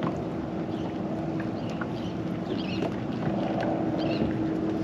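A steady low hum, typical of a boat motor running, over light wind noise, with a few faint chirps and clicks.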